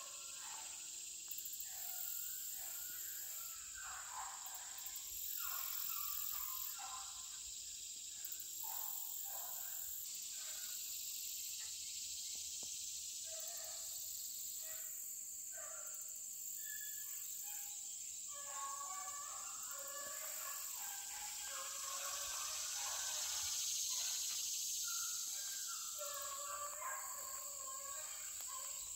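Rabbit hounds baying faintly while running a rabbit, in broken calls through the whole stretch, over a steady high drone of insects.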